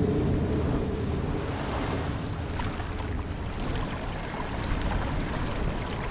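Steady rushing noise with faint scattered crackles, part of a Halloween sound-effect ambience.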